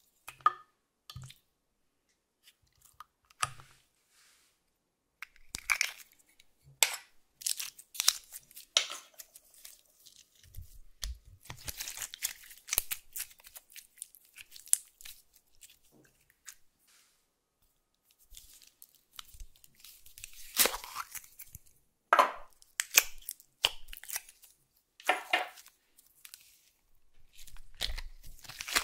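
Hands stretching and folding clear slime mixed with glitter and crushed lip balm crumbs: sticky crackling and popping, in irregular clusters with short quiet gaps, sparse for the first few seconds.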